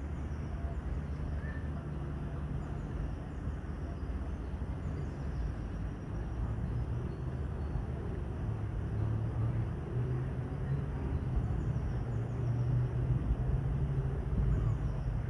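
Outdoor lakeside background: a steady low rumble, like distant traffic or wind on the microphone, with faint high chirps from small birds scattered through it.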